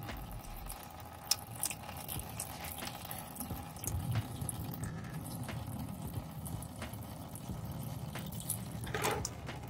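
Engine coolant (a 50-50 antifreeze and water mix) draining from the radiator drain of a 2009 Honda Civic through a tube into a container: a steady trickle of liquid, with a few light clicks.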